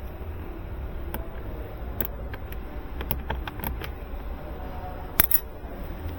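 Sharp plastic clicks and snaps from handling car interior parts and electrical connectors during the module swap: a few scattered clicks, then a louder double click about five seconds in, over a low steady rumble.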